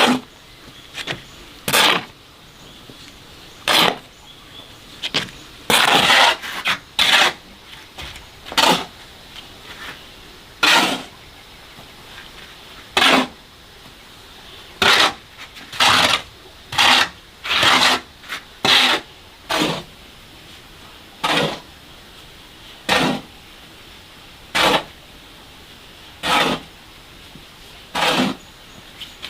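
Short scraping strokes of a hand tool repeating irregularly, roughly one every second or two.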